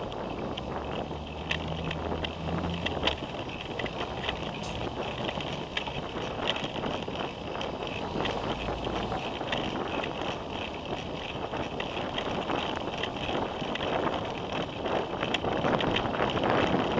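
Riding a bicycle along a city bike lane: wind buffeting a bike-mounted camera's microphone over tyre and road noise, with frequent light clicks and rattles. A low steady engine hum from passing traffic sits under it for the first few seconds.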